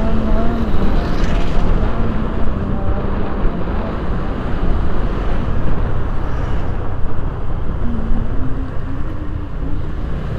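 Engine noise: a loud, steady low rumble with a hum that shifts in pitch now and then.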